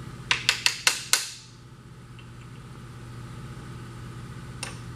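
Hammer tapping a punch against a main bearing cap of a 1950 Mercury flathead V8 to stamp an orientation dot: five sharp metal-on-metal taps in quick succession, then one more near the end.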